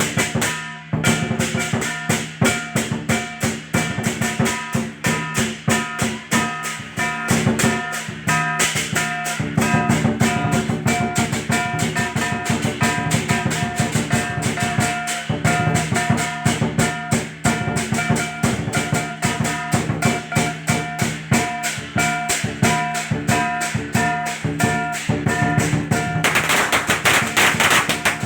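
Chinese lion dance percussion: a big drum beaten in fast, driving rhythms under clashing cymbals and a ringing gong. Near the end a dense crackle joins in as firecrackers start going off.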